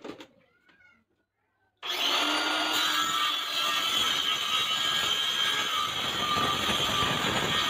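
AEG cordless circular saw running, switching on abruptly about two seconds in and then holding a steady, loud, high-pitched motor whine.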